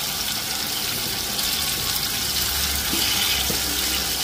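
Hot mustard oil sizzling steadily around freshly added steamed amla (Indian gooseberry) segments and whole spices frying in a kadai.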